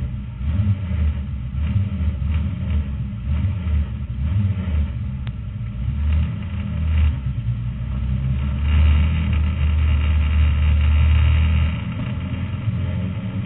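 Race car's engine heard from inside the cockpit, rumbling unevenly at low revs while rolling slowly. From about nine seconds in it holds a steadier, louder note for about three seconds, then eases off near the end.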